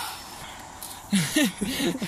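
A man grunting and breathing hard, a quick run of short low vocal sounds with breathy puffs from about a second in, as he strains to haul a magnet on a rope up out of a deep well.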